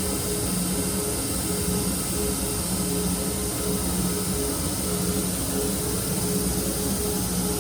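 Power grinder running steadily as a chef knife blade is thinned and reground: a constant hiss with a low hum that comes and goes every second or so.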